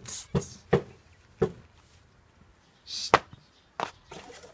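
About six sharp, irregular knocks or taps, like footfalls or handling knocks, the loudest about three seconds in.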